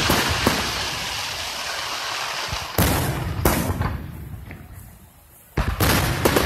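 Aerial fireworks bursting: a dense crackling hiss, then sharp booms about three seconds in and again half a second later. The sound dies away into a brief lull, and a fresh volley of booms hits near the end.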